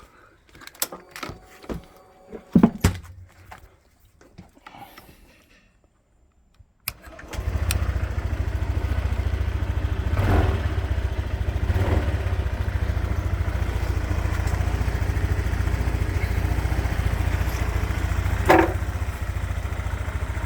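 A few clicks and knocks, then, about seven seconds in, a Honda PCX 125 scooter's single-cylinder engine starts at once and idles steadily. This is a sign the no-crank fault was cured by cleaning the connector.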